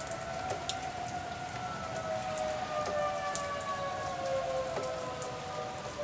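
Outdoor warning sirens sounding two steady tones together that slowly fall in pitch, over steady rain with scattered drips.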